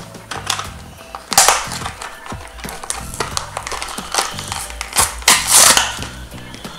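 A plastic blister pack with a card back being pried and torn open by hand: the plastic crackles and crinkles, with two louder ripping bursts, about a second and a half in and again around five and a half seconds in.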